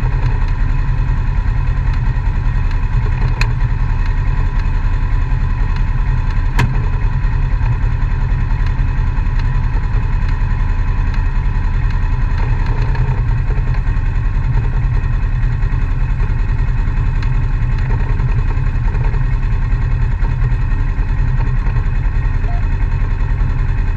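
Off-road side-by-side engine idling steadily close by, with a strong low rumble. Two short sharp clicks about three and a half and six and a half seconds in.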